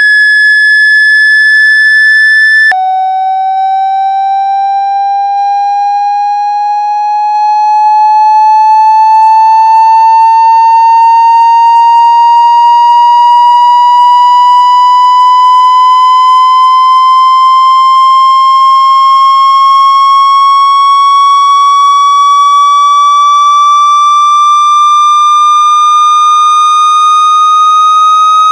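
Loud synthetic tone played to shake water out of a phone's speaker. It starts as a high steady tone, drops abruptly to a lower pitch about three seconds in, then slowly rises in pitch for the rest of the time.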